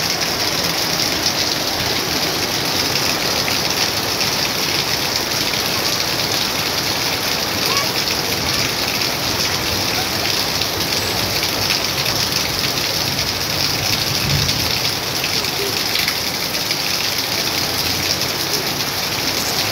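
Steady rain falling on garden plants, wet ground and puddles: an even, unbroken hiss of drops.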